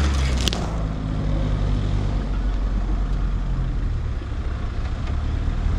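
Mahindra Thar's engine running steadily at low revs in four-wheel-drive low range as the SUV crawls across sandy off-road ground.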